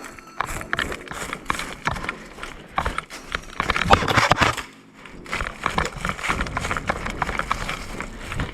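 Footsteps of a player running over rough ground, an irregular run of thuds, with a louder stretch of rustling noise about four seconds in.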